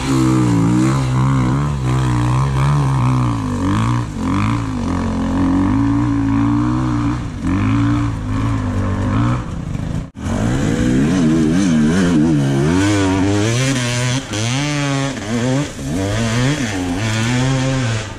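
Enduro dirt bike engine revving hard and easing off again and again as it climbs under load, its pitch rising and falling with the throttle. The sound breaks off briefly about ten seconds in and then carries on the same way.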